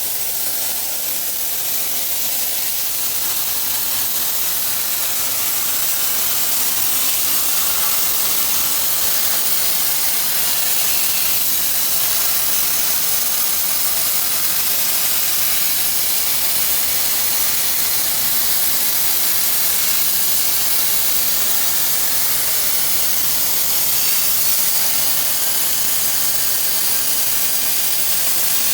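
CNC plasma cutter torch cutting metal, giving a loud, steady hiss from the plasma arc and its air jet.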